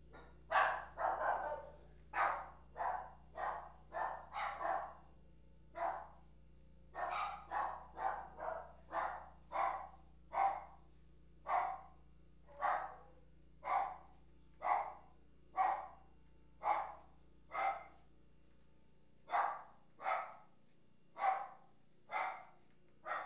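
A dog barking over and over, single barks about once a second, with quicker runs of barks in the first few seconds and again around seven to nine seconds in.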